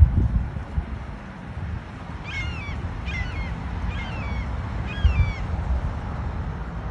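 A songbird singing four short phrases of slurred, falling whistled notes, about a second apart, starting a couple of seconds in. A steady low rumble runs underneath, with a thump at the very start.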